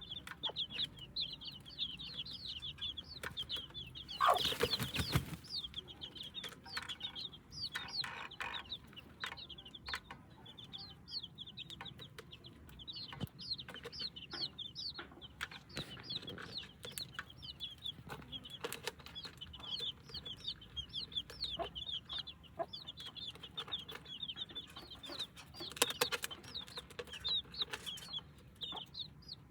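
Young chicks peeping continuously in many short high chirps, with a mother hen clucking among them. A brief loud burst of noise comes about four seconds in, and a shorter one near the end.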